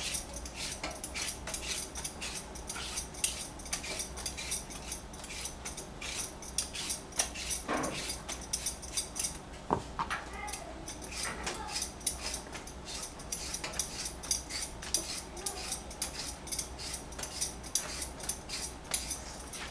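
Vegetable peeler scraping the skin off cucumbers on a plastic cutting board: a steady run of short, sharp scraping strokes, a few a second, with an occasional knock as a cucumber is handled.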